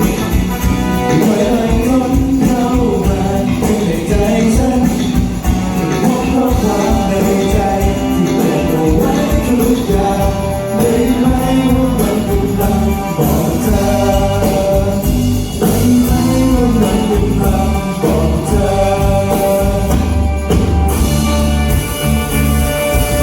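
Pop song performed live through a stage sound system: a sung melody over the backing track. The bass and drums come in stronger near the end.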